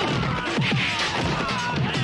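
Electronic music with a heavy beat of low, falling thuds about twice a second and quick downward sweeps, mixed with martial-arts fight hits and impacts.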